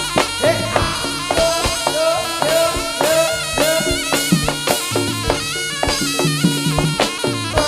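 Jaranan ensemble music: a reed wind instrument, the slompret, playing a melody with bending notes over kendang drum strokes and repeated low gong-chime notes.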